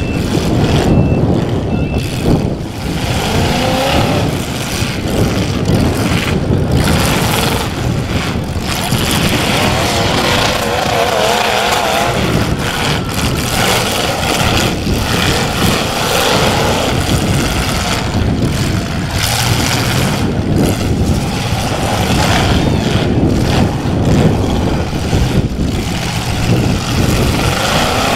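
Demolition derby cars' engines revving hard and unevenly, rising and falling in pitch, with repeated crunching metal-on-metal collisions as the cars ram each other.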